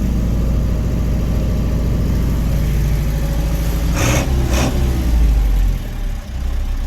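Case 995XL tractor's turbocharged diesel engine running steadily, with two short hisses a little after four seconds in and a brief dip in engine level around six seconds.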